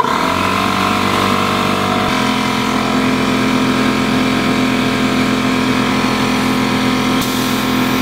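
Small portable electric air compressor switched on: the motor and pump start abruptly and run steadily and loud, the tone settling about two seconds in. A higher hiss joins near the end.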